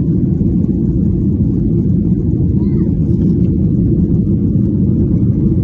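Steady low rumble of cabin noise inside a Boeing 737-800 in flight: its CFM56-7B jet engines and the air rushing past the fuselage, an even drone with no changes.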